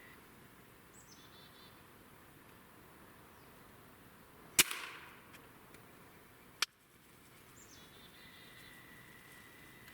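An air rifle fires once about halfway through: a sharp crack with a short tail. A second sharp click follows about two seconds later. Faint birds chirp in the background.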